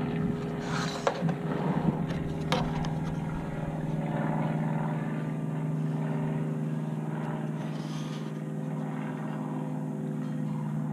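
Steady drone of a propeller airplane's engine overhead, with two light knocks about one and two and a half seconds in.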